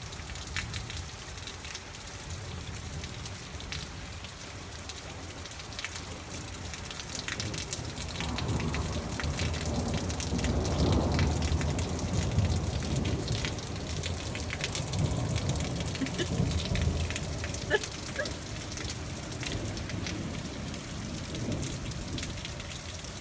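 Rain falling steadily during a thunderstorm, the drops pattering as many fine ticks. About a third of the way in, a long low roll of thunder swells up, rumbles for several seconds and dies away. A single sharp click comes about three quarters of the way in.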